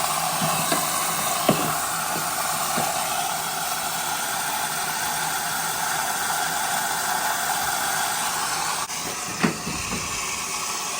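Water hissing steadily into a Maytag front-load washer through its water inlet valve, switched on during a diagnostic component test. The flow cuts off about nine seconds in, followed by a few light clicks.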